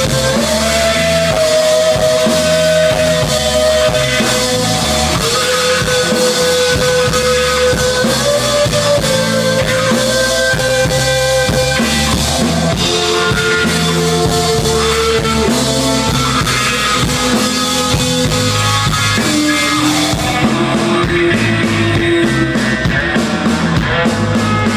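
Live rock band playing an instrumental break: drum kit and bass keep a steady beat under a slow lead melody of long held notes. The cymbals drop out about 20 seconds in.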